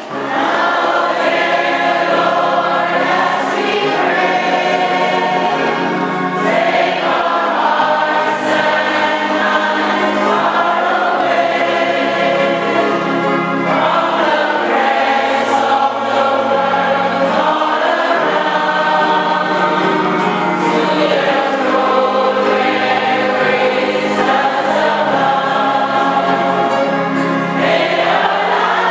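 Church congregation singing a hymn together over instrumental accompaniment that holds sustained bass notes. The voices come in at the very start.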